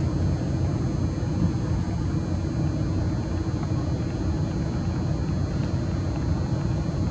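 Steady low rumbling background noise with no distinct events, and faint steady high tones above it.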